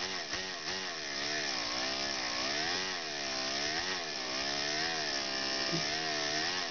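Miniature Bijou model engine, with a 1/8-inch bore and stroke and a 3/8-inch flywheel, running at high speed on compressed air from a canned-air duster. It makes a buzzing whine whose pitch wavers up and down about once a second as its speed rises and falls, over the hiss of the air driving it.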